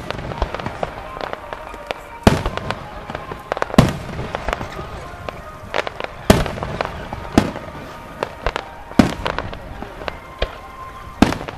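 Aerial fireworks display: about six loud shell bursts go off a second or two apart over a steady crackle of smaller reports.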